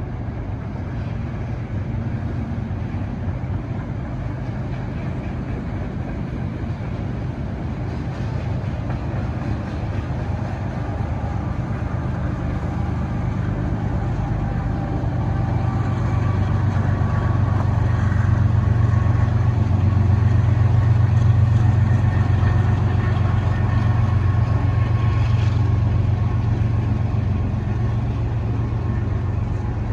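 CSX freight train's cars rolling past on the rails, a steady low rumble that swells about two-thirds of the way in and eases toward the end, with faint high ringing tones in the middle.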